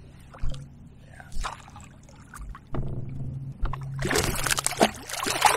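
A hooked largemouth bass thrashing and splashing at the surface beside a kayak, with a loud burst of splashing about four seconds in. A few light knocks come before it.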